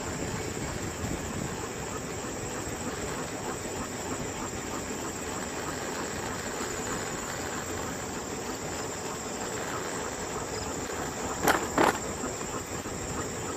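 Steady chirring of insects over a constant rushing noise from the ride. Near the end come two short, sharp, loud sounds in quick succession.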